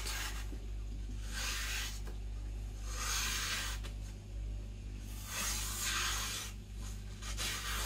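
Knife blade slicing through paper in about five separate strokes, each a brief hissing rasp. The freshly sharpened edge is a little coarse because it has not yet been stropped.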